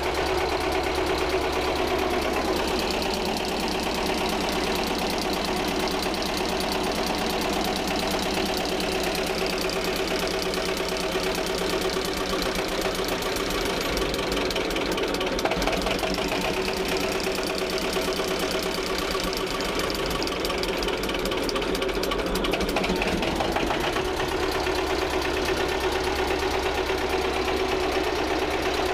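Old two-cylinder diesel engine of a homemade displacement boat, running steadily with an even, rapid beat.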